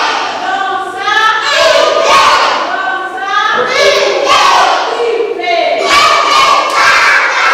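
A class of young children singing together in unison, their voices rising and falling through short held notes.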